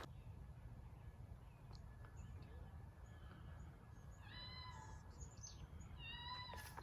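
An animal calling twice, two short drawn-out calls about four and six seconds in, over a faint steady low rumble.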